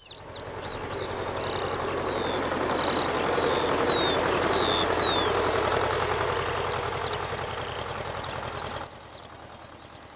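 Farm tractor engine running, its rumble growing louder toward the middle and then easing off, dropping away sharply near the end. Small birds chirp with short, falling calls over it.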